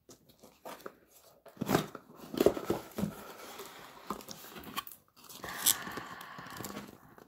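Hands handling a cardboard box: light taps and knocks as the lid is worked off, then a stretch of rustling and crinkling from the packaging inside near the end.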